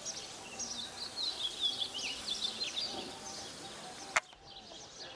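Many birds chirping and twittering together, a busy run of short, quick high calls. A single sharp click about four seconds in, after which the chirping briefly thins.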